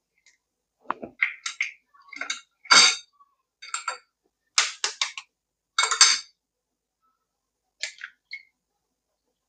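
Eggshells being cracked with a metal spoon: a run of sharp taps and shell crackles, then a few softer cracks near the end as a shell is pulled apart by hand.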